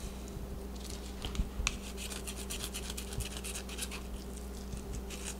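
Fillet knife cutting down the side of a peacock bass on a plastic cutting board: a run of faint scratchy strokes as the blade works through the scales and flesh, with one sharper click about a second and a half in. A steady low hum runs underneath.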